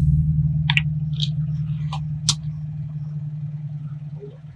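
Car engine running at low speed as the car creeps forward on wet asphalt, a steady low hum that starts suddenly and slowly fades, with a few short sharp clicks in the first two seconds or so.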